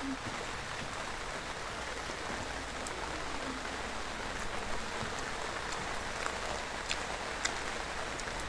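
Steady rain falling, an even hiss, with a few faint ticks in the second half.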